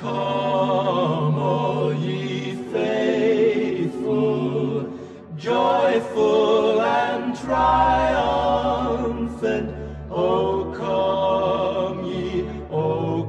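Male vocal harmony group singing a slow carol in sustained, wavering chords, phrase by phrase with short breaks between; a deep low note comes in about halfway through.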